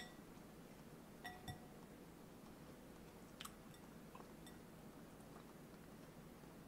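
A metal fork clinking lightly against a glass salad bowl a few times while picking through salad, two clinks close together about a second in and a couple more later, over near silence.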